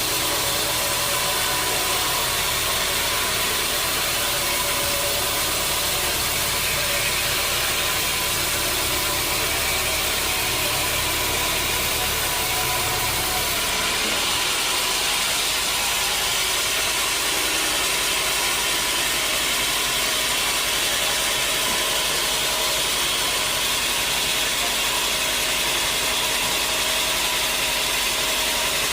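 Sawmill machinery running steadily, a continuous engine-like drone with dense noise over it; the low hum shifts about fourteen seconds in.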